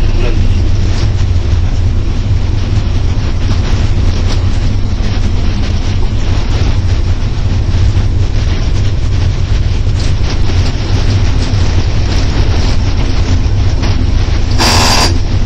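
Cab noise of an EP07 electric locomotive running at speed: a steady heavy rumble of wheels on rail with wind rush. A short, loud horn blast sounds about a second before the end as a train passes on the next track.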